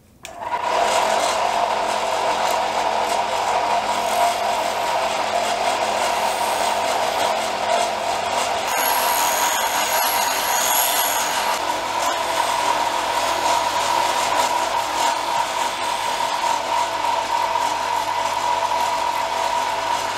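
Homemade belt-driven polishing spindle with a red abrasive wheel starting up abruptly and running with a steady whine, as an axe head is polished against the spinning wheel. Thin, high-pitched tones join for a few seconds near the middle.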